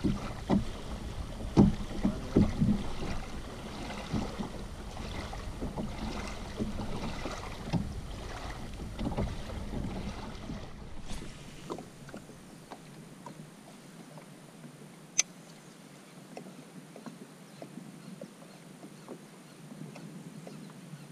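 Small waves lapping at the edge of a reservoir, with wind on the microphone and scattered clicks and knocks in the first half. About halfway through it becomes quieter water sound, with one sharp click about two-thirds of the way in.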